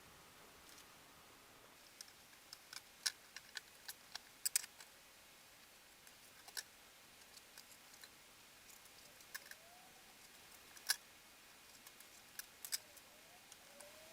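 Scattered light clicks and taps at irregular intervals, the sharpest about eleven seconds in, with a couple of faint short squeaks near the end.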